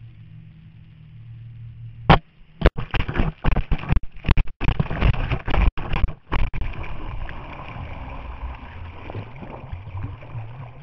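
A wakeboard tow handle with a camera on it hits the water: a sharp knock about two seconds in, then several seconds of heavy, choppy splashing over the camera, settling into a steady rush of water as it is dragged under the surface. Before the splash there is a low steady rumble of the ride over the water.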